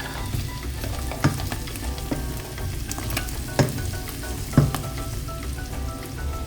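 Meat and onions sizzling in hot oil in a frying pan as they are stirred, with a few sharp knocks about a second in and twice around the middle.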